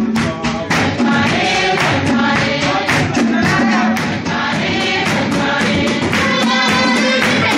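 A group of voices singing together over a steady beat.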